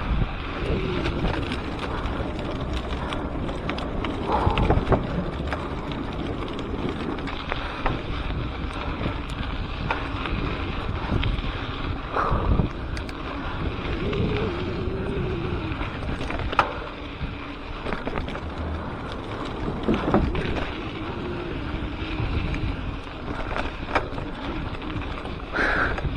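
Mountain-bike ride picked up by an action camera: a steady rush of wind on the microphone and tyre noise on the dirt trail, broken by frequent knocks and rattles from the bike over bumps, with a few brief wavering tones.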